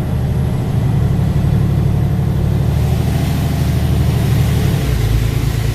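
4x4 truck driving, heard from inside the cab: a steady low engine drone with tyre and road noise, the engine note changing about five seconds in.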